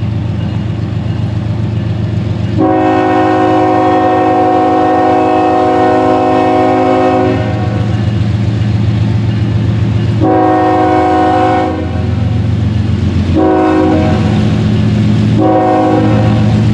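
Nathan K5HLL five-chime air horn on a CSX ES44AH diesel locomotive: one long blast, then three shorter blasts, the last running on at the end. Underneath is the steady rumble of the passing diesel locomotives and train.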